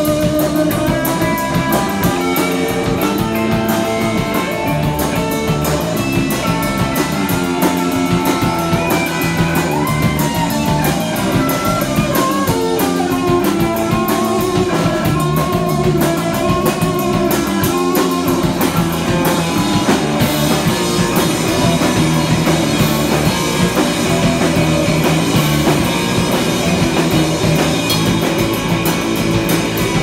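Live rock band playing: electric guitar over a drum kit, with a steady beat.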